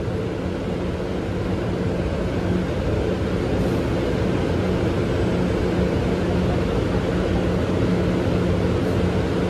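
PATH PA5 subway train standing at the platform, its onboard equipment giving a steady low hum with a drone underneath. It gets slightly louder over the first few seconds.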